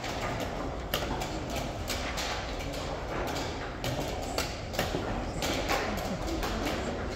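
Wooden chess pieces being set down hard on the board and chess clock buttons being pressed in a fast blitz game: a string of sharp, irregular clacks about once or twice a second over steady background noise.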